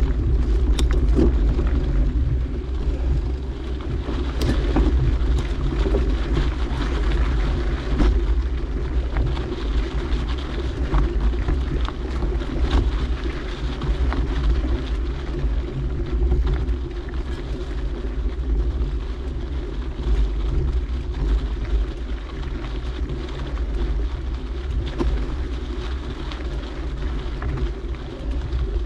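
Mountain bike rolling over a dirt trail with wind rumbling on the microphone, and scattered clicks and rattles from the bike.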